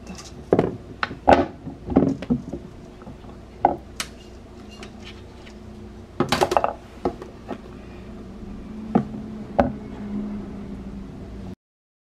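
Knife and potatoes knocking on a wooden cutting board as the potatoes are chopped: scattered knocks and clicks at uneven intervals, with a quick cluster about six seconds in, over a steady low hum. The sound cuts off suddenly near the end.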